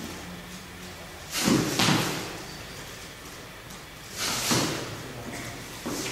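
A martial artist moving through a Xingyi form: heavy stepping thuds with the swish of clothing, two in quick succession about one and a half seconds in, and another pair about four seconds in.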